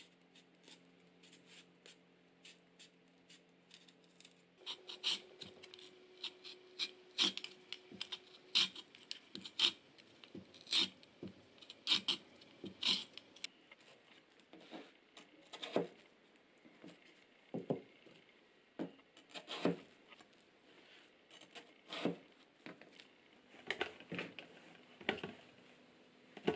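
Irregular light clicks and knocks with rubbing, as of small objects being handled. Faint and sparse at first, then louder and busier from about five seconds in.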